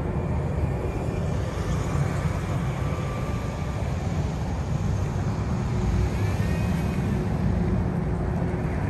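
Jet engine noise from a Boeing 777-300ER's GE90 engines just past overhead on final approach: a steady low rumble.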